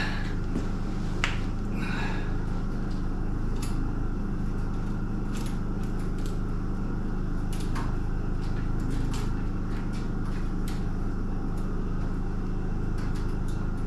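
A steady low mechanical hum, with scattered light clicks and taps from hand work on the chicken-wire-covered wooden frame.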